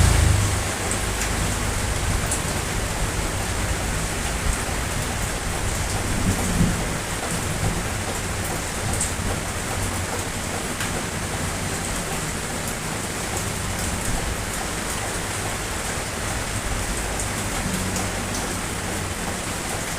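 Steady heavy rain falling, with scattered sharp drop ticks and a brief low rumble about six seconds in.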